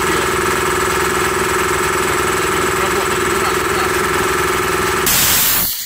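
Remeza two-cylinder belt-driven air compressor running under load with a steady hum as its 50-litre tank nears full pressure of about 9 bar. About five seconds in the motor stops and a short loud hiss of air follows: the pressure switch cutting out at full pressure.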